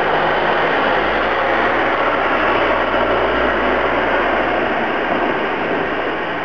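Steady motor-vehicle noise with a low engine hum, easing slightly near the end.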